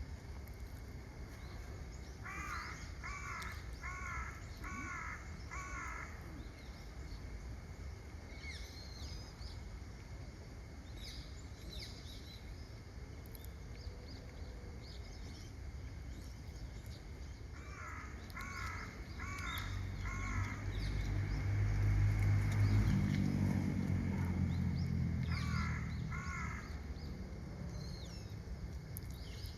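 A crow cawing in three runs: five caws, then four, then two, with scattered high chirps from smaller birds in between. Midway a low rumble swells and fades, and is the loudest sound while it lasts.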